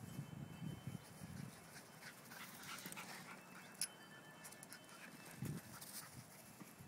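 Dogs panting faintly while playing, with one sharp click a little past halfway.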